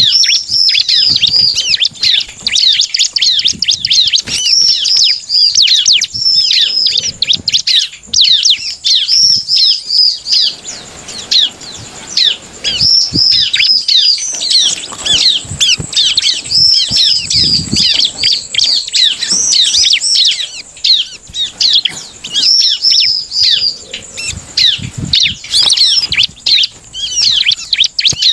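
Caged ciblek (bar-winged prinia) singing in full, agitated song: a fast, continuous chatter of rapid high chirps in long phrases broken by brief pauses. Soft wing flutters and taps come through as it hops about the cage.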